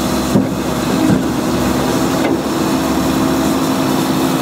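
Concrete truck's engine running steadily with a constant hum, with a few faint knocks over it.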